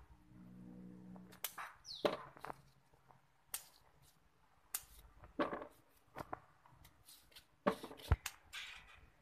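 Scissors snipping the stalks of chilli peppers off the bush: a string of sharp, irregular snips and clicks.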